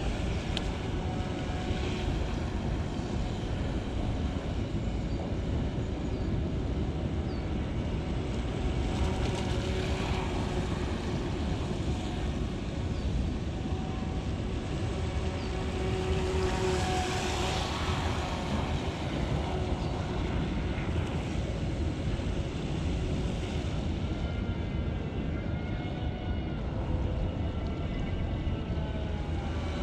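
Pro Boat StealthWake 23 RC boat's brushed electric motor whining as it runs on the water, its pitch rising and falling as it speeds up and turns, over a steady low rumble.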